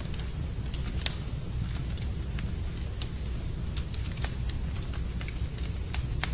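Wood fire burning in a fireplace: a steady low rumble of flame with irregular sharp crackles and pops, the loudest pop about a second in.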